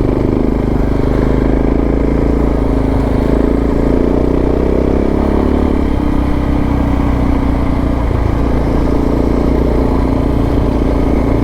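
Suzuki DR650's single-cylinder four-stroke engine running steadily under load as the motorcycle climbs uphill, its note shifting slightly about halfway through.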